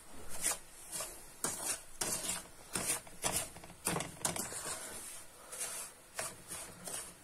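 A spoon stirring and scraping dry-looking semolina around a frying pan as it roasts in oil for helva. The scratchy strokes are uneven, roughly two a second.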